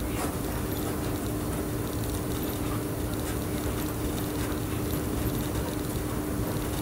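Electric train running along the track, heard from the cab: steady running noise with a constant hum.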